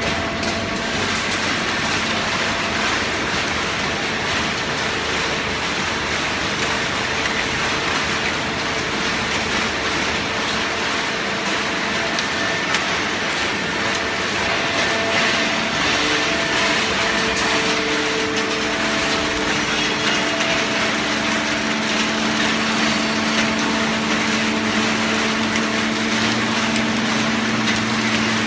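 Hydraulic cardboard baling press running: a steady mechanical noise with the hum of its hydraulic pump motor, which grows stronger over the last several seconds.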